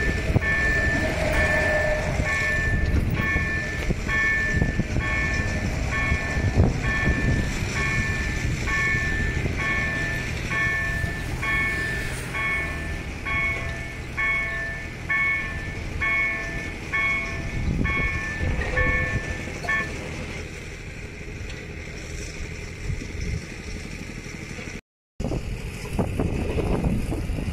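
Level crossing warning bell ringing in a steady repeating pattern, about three strokes every two seconds, while the barriers come down; it stops about twenty seconds in. Steady low background noise carries on after it, with a brief dropout near the end.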